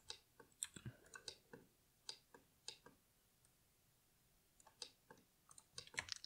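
Faint, scattered clicks of a computer mouse and keyboard, with a pause of about a second and a half in the middle.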